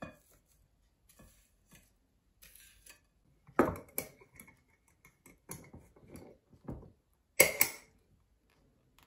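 A glass swing-top jar being closed: the glass lid knocks onto the rim about three and a half seconds in, lighter clicks and knocks follow, and the wire clasp snaps shut with a sharp double click near the end, the loudest sound. A few faint clicks come first as the last red currants drop into the jar.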